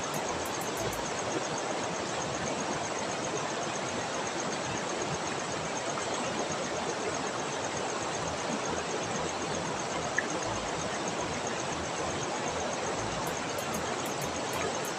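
Steady rushing of river water, an even hiss without pause, with one brief click about ten seconds in.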